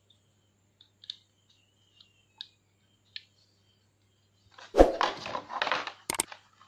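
Faint clicks and taps as a USB capture adapter and its cables are handled. About five seconds in, a loud knock and then crackling of the clear plastic blister tray as the adapter is set back into it. Then a sharp double click from the subscribe-button animation's sound effect.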